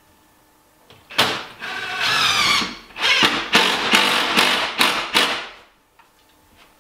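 Cordless power driver running in bursts, driving screws into the wooden cabinet framing. It starts about a second in with one longer run, then several short bursts, and stops near the end.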